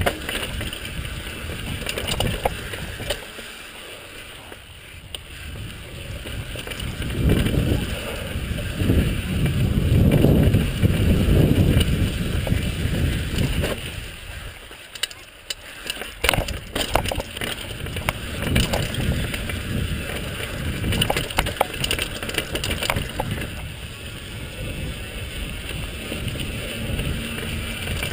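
Niner mountain bike descending a dirt singletrack: tyres rolling and crunching over dirt and rock, with the bike rattling and knocking over bumps, loudest in a cluster of knocks about two-thirds of the way through. Wind rumbles on the microphone in the middle stretch.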